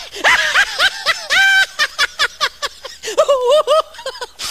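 Human laughter: high-pitched giggling and snickering in quick short bursts, with one longer held squeal about a second and a half in.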